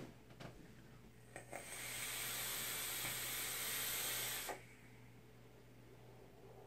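Fishbone RDA's coil firing on a VCM hybrid mech mod during a long drag: a steady hiss and sizzle of the coil and air drawn through the bottom airflow. It lasts about three seconds and stops abruptly, after a couple of faint clicks as the device is handled.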